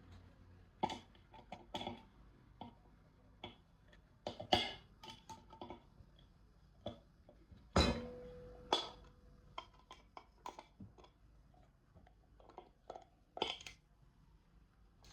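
Irregular small clicks, taps and knocks of a cookware lid and its handle parts being handled and screwed together. One louder knock about eight seconds in leaves a short ringing tone.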